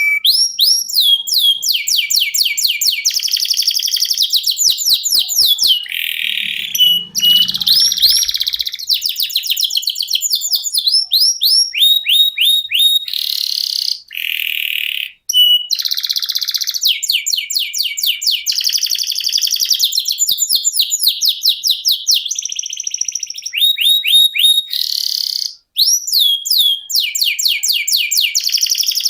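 Domestic canary singing a long, continuous rolling song: fast trills of repeated high down-sweeping notes, switching from one trill to the next every second or two, with two brief breaks, one about halfway and one near the end.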